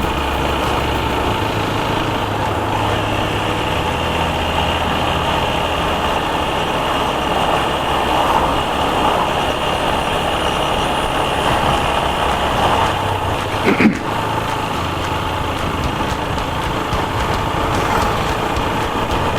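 TVS Apache RTR 160 4V single-cylinder motorcycle engine running on the move, under steady road and wind noise. The engine note shifts a few times with throttle. A brief sharp knock sounds about fourteen seconds in.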